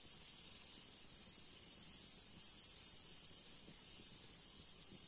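Pressure cooker on a wood fire hissing steadily as steam escapes from its valve: the cooker is up to pressure, cooking beans.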